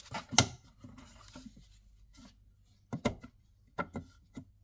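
Knocks and clicks of a wall socket faceplate being handled and pushed against its back box, the loudest about half a second in and a few more near the end.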